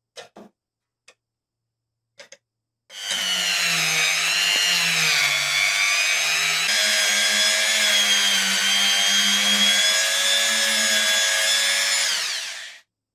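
A few faint clicks, then about three seconds in a handheld rotary tool starts and runs with a steady high motor whine against the lighter's metal edge, its pitch wavering at first and then holding level. It stops shortly before the end.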